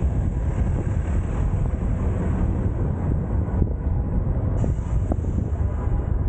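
Steady low rumble of wind on a car-mounted camera's microphone mixed with road and traffic noise as the car drives through city streets.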